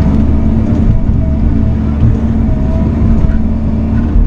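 Bobcat mini excavator's diesel engine running steadily, heard from inside the cab, with a few brief higher whines as the boom and thumb work brush.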